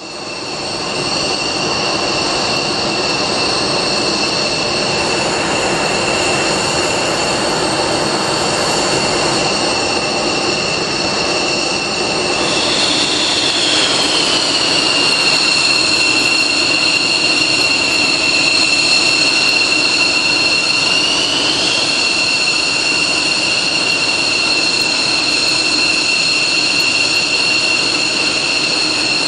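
F-16 Fighting Falcon's turbofan engine running on the ground with a loud, steady high-pitched whine over a rushing noise. Part of the whine slides down in pitch about halfway through and climbs back up a few seconds later.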